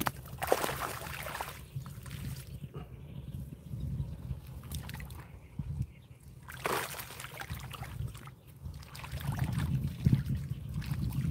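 Shallow water sloshing and splashing around a collapsible mesh fish keepnet being lowered and moved in a stream with a caught fish inside. There are louder splashes about half a second in, near seven seconds and around ten seconds.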